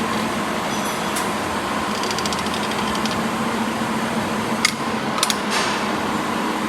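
Metal lathe running steadily with a hum during a thread-cutting operation, with a patch of fast ticking and a few sharp clicks or knocks about midway.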